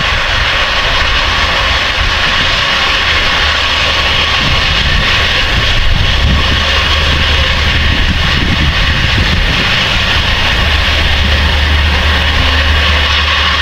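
Case IH Quadtrac 620 tracked tractor's Cummins 15-litre six-cylinder diesel running steadily: a deep drone with a broad hiss above it. The drone swells a little midway and again near the end.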